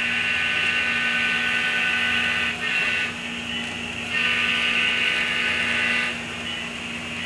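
HO scale model Amtrak locomotive running along the track with a high, steady motor whine. The whine is loud for the first couple of seconds, dips, swells again around the middle, then eases toward the end.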